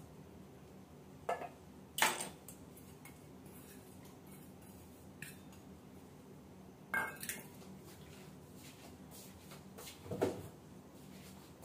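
Kitchen dishes and utensils being handled: a few separate clinks and knocks, the loudest about two seconds in, between stretches of quiet.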